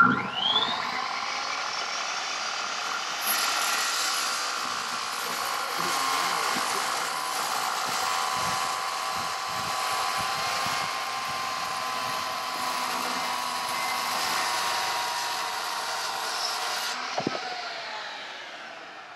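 10-inch circular saw starting up with a rising whine, then cutting steadily through a 4x10 wooden rafter beam, making an angled cut. Near the end the motor is released, a sharp knock sounds and the blade winds down.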